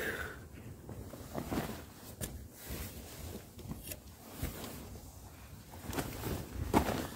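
A person shifting about inside a tent: irregular rustling and a few soft knocks over a low rumble.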